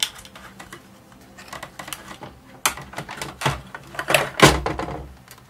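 Plastic case and chassis of a vintage Sanyo M4515KG portable cassette recorder clicking, knocking and clattering as the chassis is worked out of its case by hand. The knocks come irregularly, growing busier about two and a half seconds in; the loudest is a thud about four and a half seconds in.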